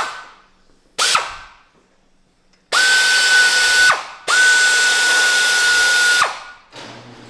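Handheld power tool running in four bursts: two short blips, then two longer runs of about one and a half and two seconds. Each run spins up quickly to a steady whine with a hiss over it and winds down when released.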